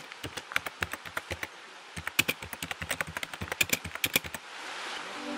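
Key-typing sound effect, a quick run of sharp clicks synced to title text appearing letter by letter, with a short pause between the two lines. Near the end the clicks stop, a rain-like hiss swells and music comes in.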